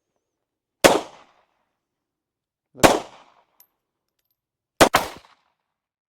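Pistol shots fired at a steady pace: three sharp cracks about two seconds apart, the last followed almost at once by a second crack, each dying away in a short echo.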